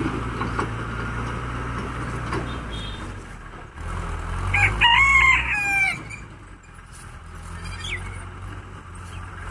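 A rooster crows once, a drawn-out call about four and a half seconds in, over the low steady hum of a tractor engine running in the distance.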